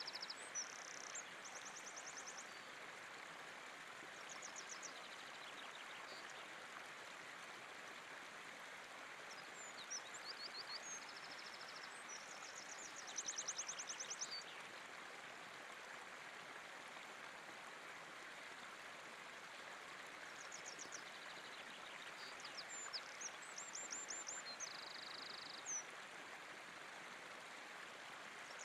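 River water running over rocks, a steady faint rush. A songbird sings short high trills and whistled phrases over it every few seconds, loudest about halfway through.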